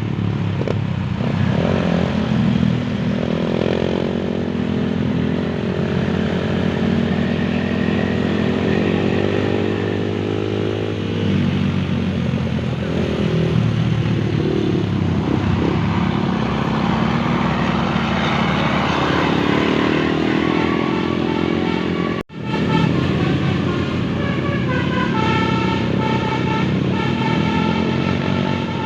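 Motor vehicle engines on the road, their pitch rising and falling repeatedly as they speed up and slow down. There is a steady multi-note tone near the start and again over the last few seconds, and the sound cuts out for an instant about 22 seconds in.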